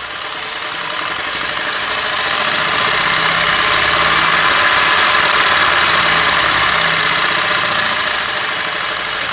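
Overvolted sewing machine running flat out on a three-phase supply far above its rated voltage: its electric motor and mechanism make a loud, dense high-speed whir. The sound builds over the first few seconds and eases slightly near the end.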